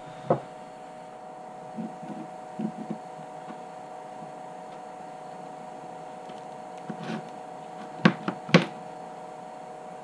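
Scattered knocks and clicks of an XT-90 connector and battery wires being handled and seated in a metal soldering jig, one sharp knock just after the start, a few soft taps, and a cluster of sharper clicks about eight seconds in, over a steady hum.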